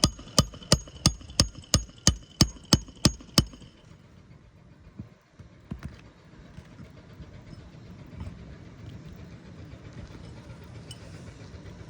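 Hammer blows on a steel nail-driving tool, sinking a roofing nail under a lifted asphalt shingle: about eleven quick ringing metallic strikes, roughly three a second, that stop after about three and a half seconds. A low steady rumble carries on underneath.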